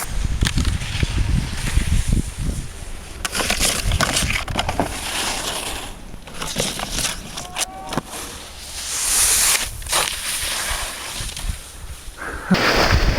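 Skis scraping and hissing over snow, the sound swelling and fading with each turn, with wind rumbling on the camera's microphone.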